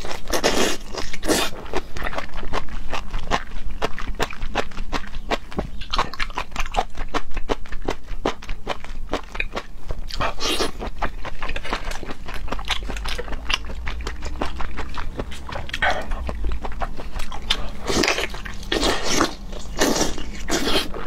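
Close-miked wet chewing of raw scallop sashimi: soft, slippery bites and many quick mouth clicks and smacks, with a few louder wet bursts, several of them near the end.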